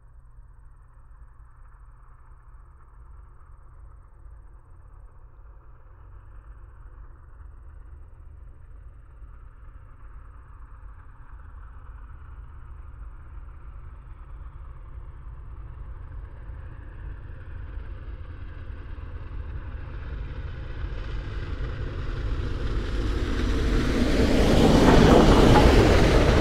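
Union Pacific Big Boy No. 4014, a 4-8-8-4 articulated steam locomotive, approaching at speed: a low rumble that grows steadily louder and is loudest near the end as it reaches the microphone. Crickets chirp faintly in the grass while it is still distant.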